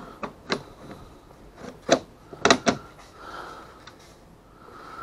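Sharp plastic clicks and knocks as a Humminbird fish finder unit and its mount and cable connectors are handled, about half a dozen in all, the loudest near the middle.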